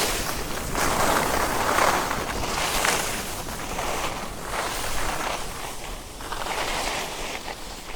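Alpine skis sliding and carving on snow: a hissing scrape that swells and fades with each turn, about every second or two.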